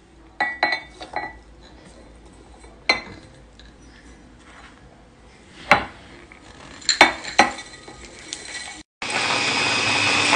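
Ceramic bowls clinking against a glass food-chopper bowl as almond flour and powdered sugar are tipped in: a handful of separate sharp clinks. About nine seconds in, the electric chopper's motor starts abruptly and runs steadily, grinding the almond flour and powdered sugar into a fine powder.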